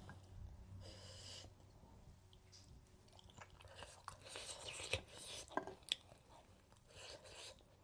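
A person chewing food close to the microphone: soft, quiet mouth sounds with small wet clicks scattered through.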